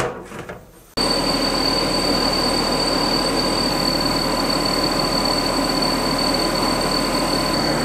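50 W CO2 laser cutter running while it cuts clear acrylic: a steady machine whir with a constant high whine. It starts abruptly about a second in and holds at an even level.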